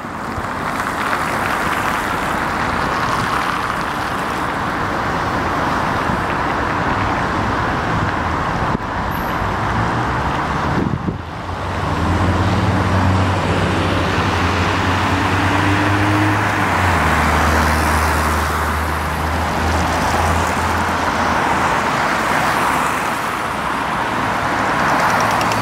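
Road traffic on a multi-lane city road: the steady rush of cars passing. About halfway through, a low steady engine drone joins in.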